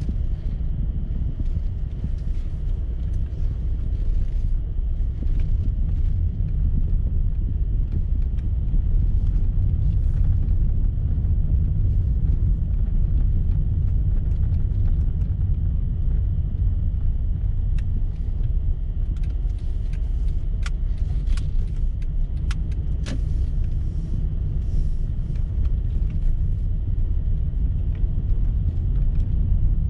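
Steady low rumble of a car's engine and tyres heard from inside the cabin while driving. A few sharp ticks come a little past the middle.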